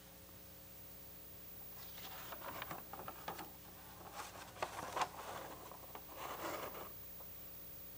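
Sheets of paper rustling and shuffling as they are handled, in several bouts from about two seconds in until shortly before the end, over a faint steady hum.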